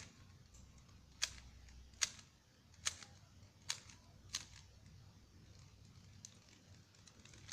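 Plastic clicks of a Rubik's Speed Cube's layers being turned by hand: about five sharp clacks a little under a second apart, then a few fainter ticks.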